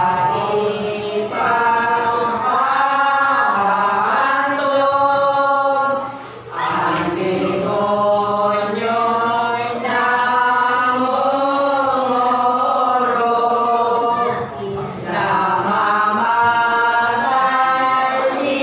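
A small group of women singing gozos, a devotional hymn, together without accompaniment, in long, held notes with two brief breaks between lines.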